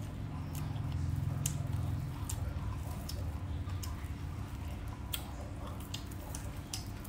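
Scattered crisp clicks and light rustling of fresh water chive stems handled and pulled apart by hand, over a low steady hum.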